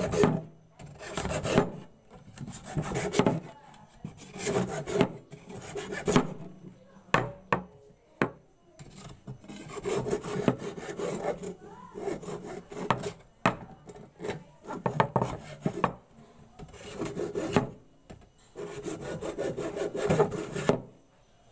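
Hacksaw blade scraping the outer skin off a thick bamboo pole, in repeated strokes of about a second each with short pauses between, a few running longer.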